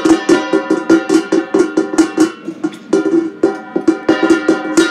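Music: a fast run of plucked-string notes in quick succession.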